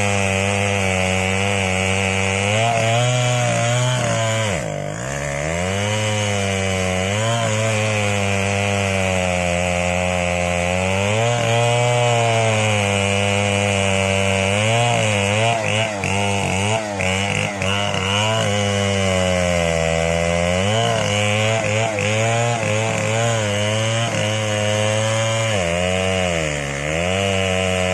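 Large two-stroke chainsaw, a Stihl 070, running at high revs as it cuts through a stump. Its engine pitch sags and recovers again and again as it bogs under load, with the deepest dips about five seconds in, around twenty seconds and near the end.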